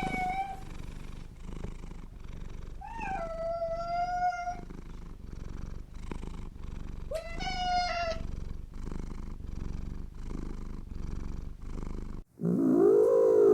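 A cat purring steadily and rhythmically, with two meows, one about three seconds in and one about seven seconds in. Near the end the purring stops and a louder, low, drawn-out cat call starts, rising and then falling in pitch.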